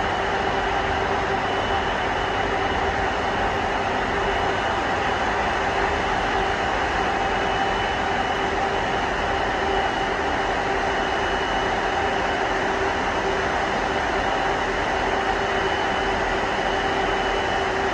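Twin-engined widebody jet airliner's engines running at idle as it taxis in to the gate: a steady rush of noise with a constant whine and hum.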